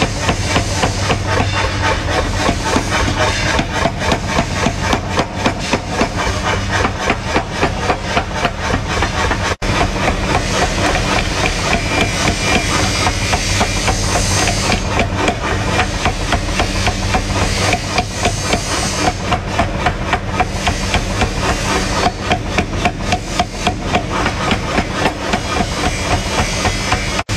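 Power hammer rapidly striking red-hot steel held on its anvil die, drawing out a knife blank, with rapid, steady blows over a steady hum.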